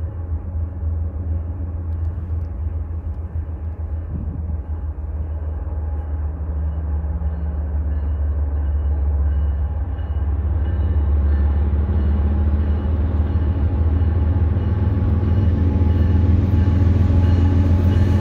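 Diesel-electric freight locomotives hauling a CSX freight train on approach: a steady low engine rumble that grows louder and fuller as the train nears.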